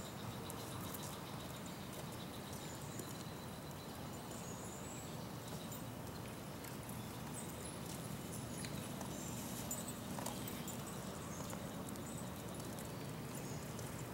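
Yellow-crowned night heron nestlings clicking at the nest while being fed, a scatter of soft irregular clicks over a steady outdoor hum. Faint short high chirps come and go.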